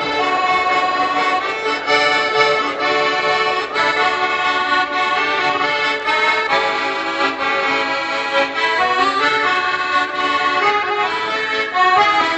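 Accordion playing solo, an instrumental passage between the songs of a medley, with chords and melody notes changing in quick succession.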